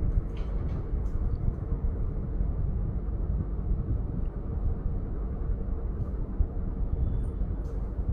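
Steady low rumbling background noise with a faint even hum and a few faint ticks.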